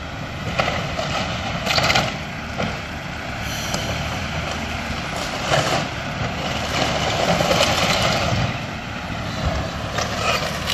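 A heavy diesel engine drones steadily while a Cat excavator tears into a wood-frame house roof. Scattered cracks and crunches of splintering wood and falling debris come through it.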